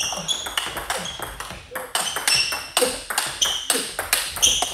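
Fast table tennis rally: the ball clicking sharply off the bats and the table top, about four hits a second, each with a short high ping.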